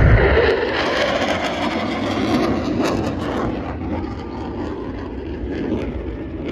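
Military jet taking off, a loud jet roar that is strongest at the start and fades steadily as the aircraft climbs away.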